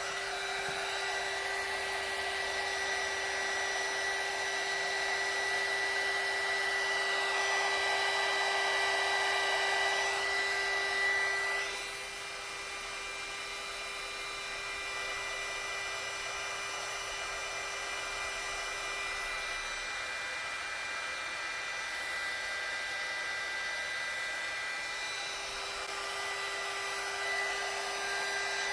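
Electric heat gun running steadily, a fan whine over a rushing hiss, as it shrinks heat-shrink tubing over a turn-signal stalk. It gets a little quieter about twelve seconds in.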